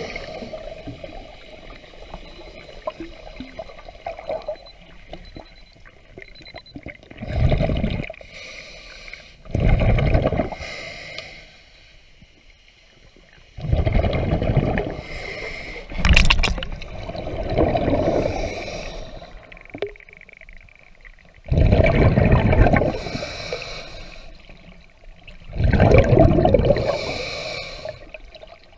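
A diver breathing underwater: loud rushes of breath and bubbling that come and go every two to four seconds, with one sharp knock about sixteen seconds in.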